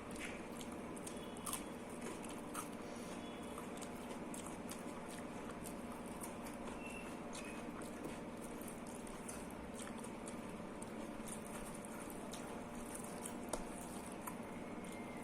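Close-up eating sounds of rice and dal: soft wet chewing and squishy mouth noises with many small clicks scattered throughout, over a steady low hum.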